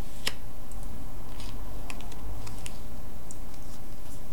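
Tarot cards handled and laid down on a cloth-covered table: a few light, irregular clicks and flicks of card stock, over a steady low hum.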